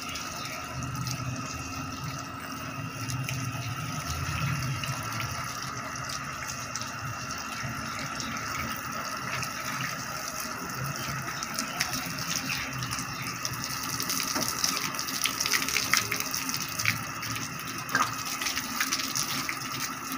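Water running from a garden hose and splashing over a motorcycle, with a steady hum underneath. Spatters and drips grow busier in the second half, and there is one sharp knock near the end.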